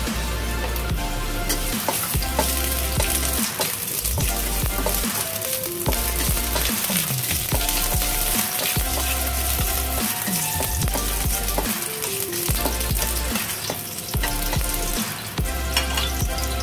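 Ginger slices sizzling steadily in hot oil in a stainless steel wok as a spatula stirs them, with electronic background music underneath.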